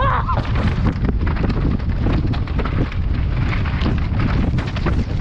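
Downhill mountain bike rattling and its tyres crunching over rock slabs and loose gravel at speed, a constant clatter of small knocks, with wind buffeting the helmet camera's microphone.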